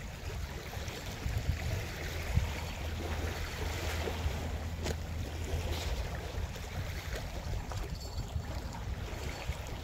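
Wind buffeting the microphone over small bay waves lapping at the shoreline, with a brief thump about two and a half seconds in.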